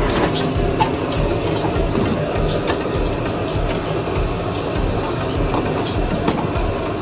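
Clatter of a busy street-food noodle stall: short clinks and knocks of metal and crockery scattered over a steady low rumble.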